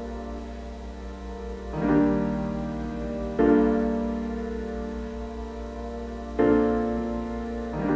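Slow piano-like keyboard music played on a Xiaomi Square Box 2 Bluetooth speaker for a sound test. Held chords sit over a steady deep bass tone, and a new chord strikes every one and a half to three seconds.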